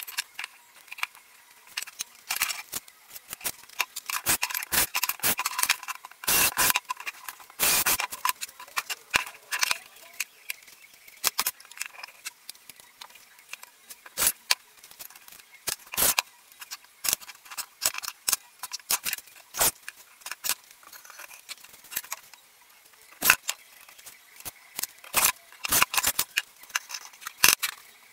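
Pallet-wood boards and battens being set down, shifted and slid on a work table: irregular wooden knocks and clacks, with scraping in the first third.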